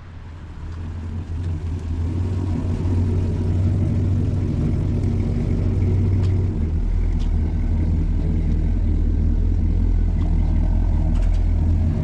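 Pickup truck engine idling with a steady, deep low rumble, fading in over the first couple of seconds and settling a little lower in pitch about halfway through.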